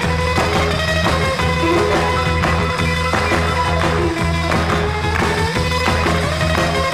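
Background music: a continuous instrumental track with a steady bass line.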